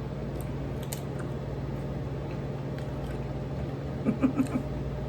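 Faint crunching of a wavy potato chip being bitten and chewed, over a steady low hum, with a short murmur of a voice about four seconds in.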